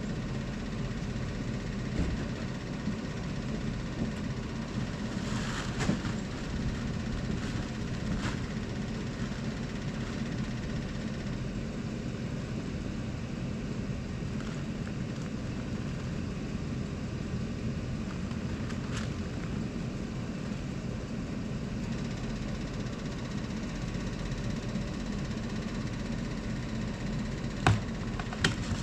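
Pickup truck engine idling steadily, a low even hum. Two sharp knocks come near the end.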